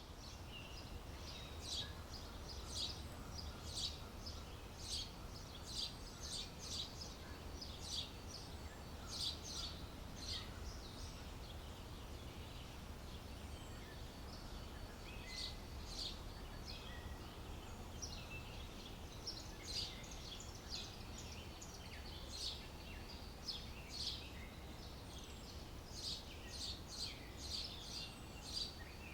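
Small birds chirping: short, high chirps in quick clusters, repeating all through, over a steady low background rumble.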